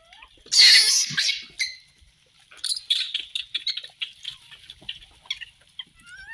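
Rhesus macaques crowding at food: a loud harsh screech about half a second in that lasts about a second, then a quick run of short high squeaks and chirps.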